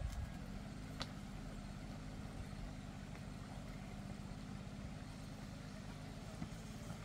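An unseen engine running steadily at an even pitch, with a single sharp click about a second in.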